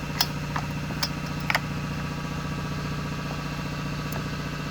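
Steady mechanical hum, like a machine running, with a few light clicks and taps in the first couple of seconds.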